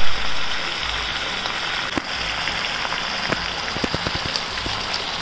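Cabbage Manchurian balls in their sauce sizzling and simmering in a frying pan: a steady crackle with scattered small pops, more of them in the second half.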